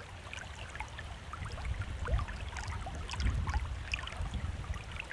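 Many short bird chirps and calls scattered throughout, over a steady low rumble of wind on the microphone.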